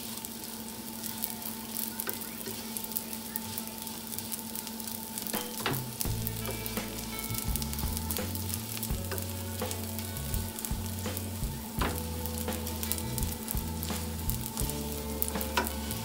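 Raw white rice sizzling in melted butter in a stainless steel pan as it is toasted, stirred constantly with a wooden spoon that scrapes and clicks against the pan.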